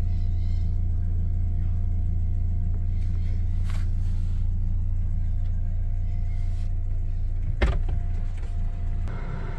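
2001 Volkswagen Golf's 1.6-litre eight-valve four-cylinder engine running steadily with a low, even hum. There is a single sharp knock near the end.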